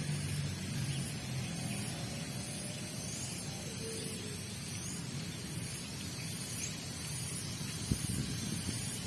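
Steady outdoor hiss over a low traffic hum, with a low engine drone fading out in the first second or two and a single thump about eight seconds in.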